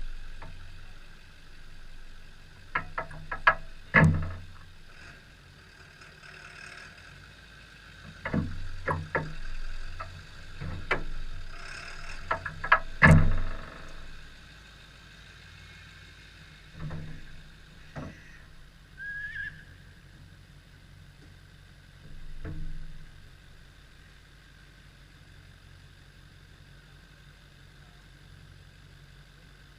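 A car engine running low and steady, with sharp knocks and bangs in clusters through the first half, the loudest about four and thirteen seconds in, then only a few scattered knocks as it settles to a quieter steady hum.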